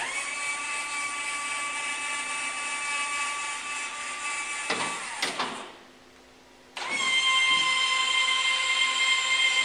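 Electric linear actuators whining as they drive a wheelchair ramp down. The whine winds down with a falling pitch about five seconds in, then after about a second's pause starts again, louder, as the actuators raise the ramp back up.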